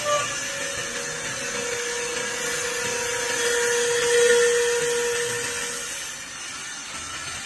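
CA-0716 CNC wood lathe running with a steady whine over a noisy hiss, loudest about halfway through and easing off near the end.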